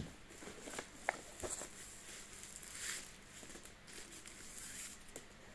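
Faint handling noises as a smartphone and its packaging are handled: soft rustles and a few small clicks and taps, with a brief squeak about a second in.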